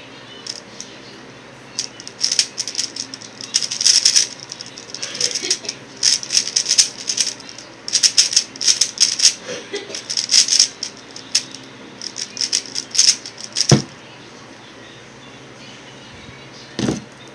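X-Man Tornado V1 3x3 speedcube being turned fast: quick bursts of clicking and rattling layer turns for about twelve seconds, with short pauses between bursts. The turning stops with one sharp knock, and a second knock follows near the end.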